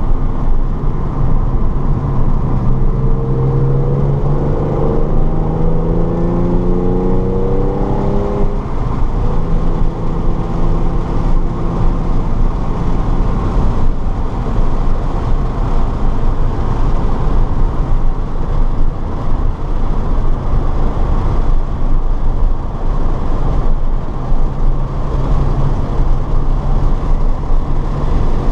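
A car engine under heavy road and wind noise. For several seconds its note rises steadily as the car accelerates, then it holds a steady pitch.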